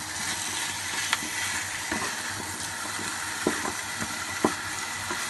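Chicken, potato and carrot pieces sizzling in a non-stick wok while a wooden spatula stirs them, with a steady hiss. A few sharp clicks sound as the spatula knocks against the pan.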